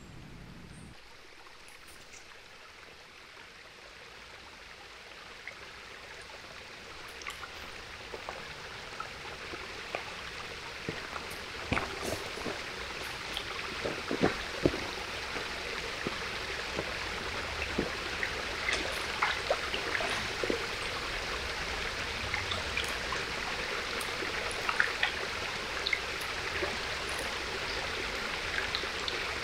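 Small forest stream trickling and splashing over stones, swelling in level over the first half. Footsteps on dry leaf litter give a few sharp cracks and rustles around the middle.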